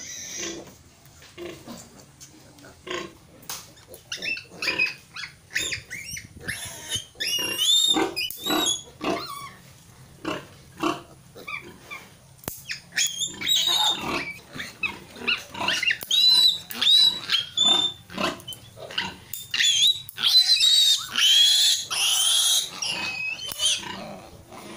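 Piglet squealing in many short, high, wavering shrieks, loudest a few seconds before the end, while it is held and its needle teeth are clipped.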